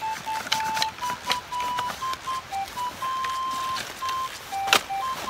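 A simple tune played in plain beep-like tones, with light clicks and rustles from handling a backpack and a sharp knock about 4.7 seconds in.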